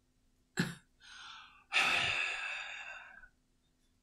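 A woman breathing onto the probe of a digital food thermometer to test its reading. There is a short sharp sound about half a second in, a brief softer breath, then a long exhale of about a second and a half.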